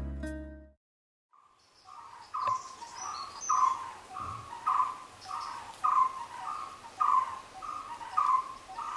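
A plucked-string music chord dies away in the first second. After a short pause, a bird starts calling one short, slightly falling note over and over, about two a second, with a faint hiss of other wildlife behind it.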